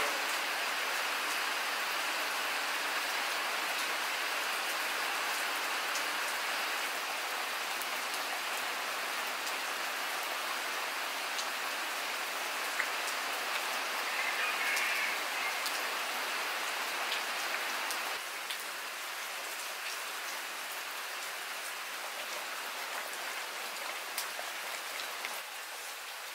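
Steady rain falling, an even hiss with scattered drips ticking; a little quieter after about eighteen seconds.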